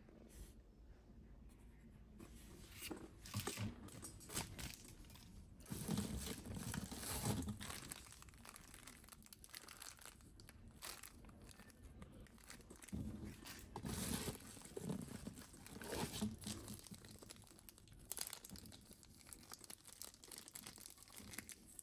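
Plastic packaging and bubble wrap crinkling and rustling in irregular spells as boxed items are handled and unpacked, loudest around a quarter of the way in and again past the middle.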